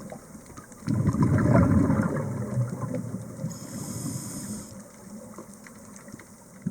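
Scuba diver's exhaled bubbles heard underwater, a burst of bubbling about a second in that fades away over the next few seconds. A faint high whine comes in briefly around the middle.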